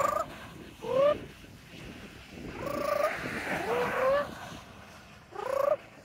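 Pet parrot vocalizing to itself with a series of about five short, rising trilling calls.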